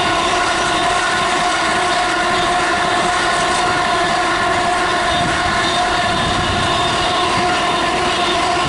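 An engineering train of ballast hopper wagons rolling steadily past at speed, a loud, even running noise of wheels on rail with a steady whine held over it.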